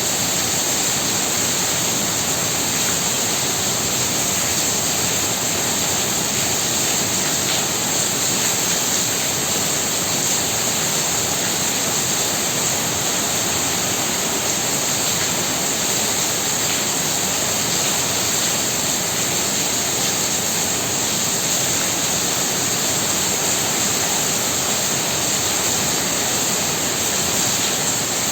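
Heavy rain falling hard and steadily, an unbroken even hiss with no single drops or gusts standing out.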